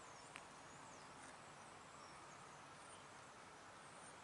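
Near silence: faint outdoor ambience with a few faint, high bird chirps and one small click about half a second in.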